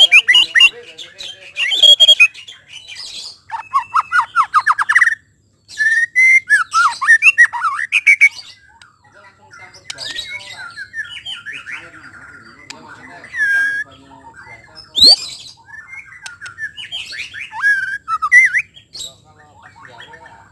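White-rumped shama singing a loud, varied song: whistled phrases, fast trills and harsh squawk-like notes in bursts with short pauses, growing softer and sparser in the second half.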